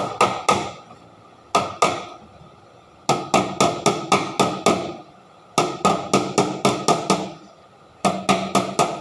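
A hammer striking metal in quick runs of blows, about three to four a second, each blow ringing briefly. Between the runs there are pauses of about half a second to a second.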